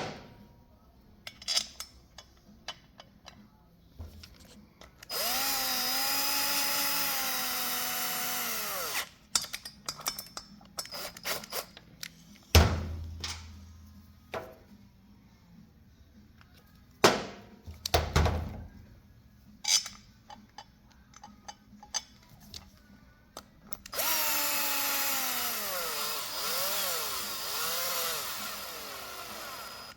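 A cordless drill/driver runs rotor bolts down into the front brake rotor in two runs of about four and five seconds, its motor pitch wavering as each bolt takes up. Short metallic clicks and knocks of tools and parts come between the runs.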